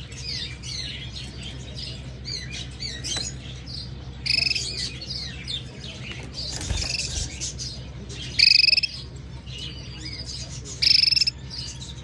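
Caged canary chirping and twittering continuously, broken by three loud, short harsh calls about four, eight and eleven seconds in.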